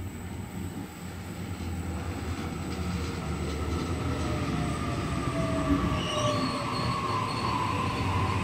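Sydney Trains Waratah Series 2 double-decker electric train pulling into the platform and braking, wheels rumbling and growing louder as it draws alongside. Its traction motors whine down in pitch as it slows, and brief high wheel squeals come about six seconds in.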